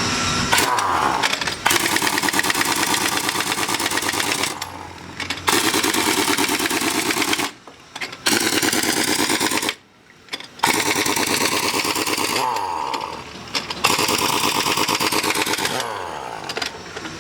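Pneumatic impact wrench running in about five bursts of rapid hammering, with short pauses between them, as it runs the new nuts onto a truck wheel's studs.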